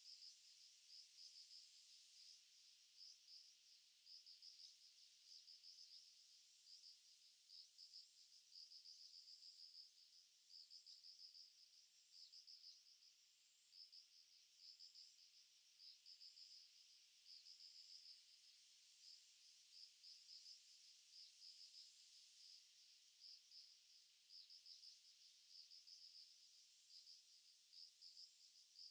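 Faint chorus of crickets chirping in rapid, continuous trains of high-pitched pulses, with a fainter higher note repeating about once a second.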